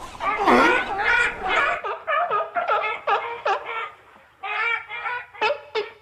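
Seal calling in a rapid string of short pitched calls, several a second, with a brief pause about four seconds in.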